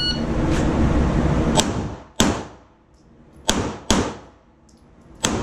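A handgun firing an uneven string of five sharp shots, two of them close together near the middle, as in a shooting drill on numbered targets. A loud rushing noise fades out over the first two seconds.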